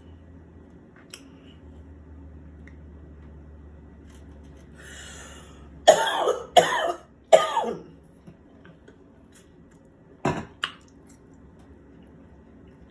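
A person coughing three times in quick succession, then one more short cough or throat clearing a few seconds later.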